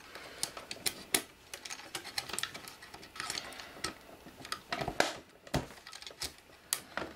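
Irregular small plastic clicks and handling noise as fingers work loose and unplug wire-harness connectors from a circuit board inside a total station's housing.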